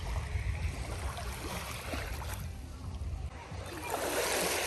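Small waves lapping and washing up a sandy beach, with a wave rushing in over the sand near the end. A steady low rumble of wind on the microphone runs underneath.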